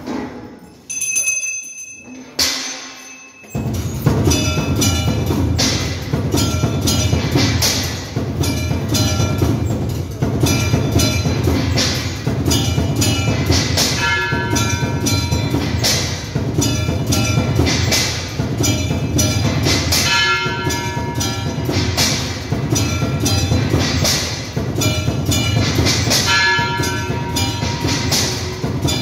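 Temple bells and drums played together in a fast, steady rhythm for an aarti, starting after a few separate bell strikes about three seconds in.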